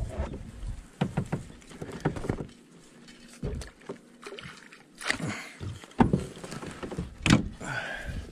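Irregular knocks and splashes at a fishing kayak while a hooked smallmouth bass fights at the boat.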